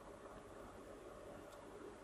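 Near silence: a steady low hiss of room tone.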